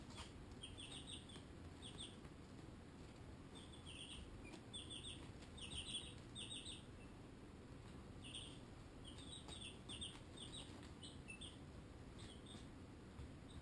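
Baby chicks, Barred Rocks and Ameraucanas, peeping faintly in quick runs of three or four short high peeps, on and off throughout.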